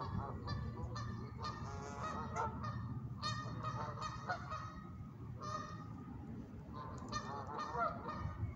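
Geese honking, a string of repeated calls throughout.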